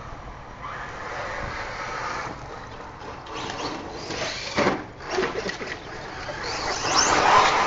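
Radio-controlled 1/8-scale buggy running on a loose dirt track: a rough scrabbling noise from the tyres and drivetrain that comes in uneven surges and is loudest near the end.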